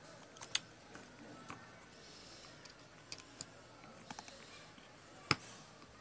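Scattered short plastic clicks and taps from a handmade transformation-trigger toy prop being handled, with one sharp click a little after five seconds in.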